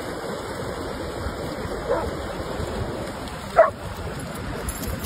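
A dog gives two short barks, about two seconds in and again, louder, about a second and a half later, over a steady wash of surf.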